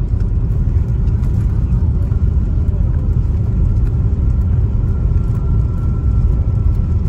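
Cabin noise of an Airbus A350-900 rolling down the runway just after landing, its wing spoilers raised: a loud, steady low rumble of wheels and engines. A faint high whine comes in about halfway through.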